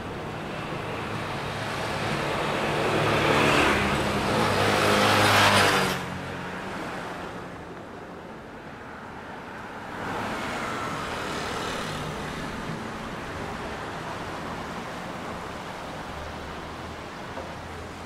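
Road traffic: a motor vehicle passes close by, growing louder over the first six seconds and then dropping away abruptly, followed by a steady traffic hum that swells again about ten seconds in.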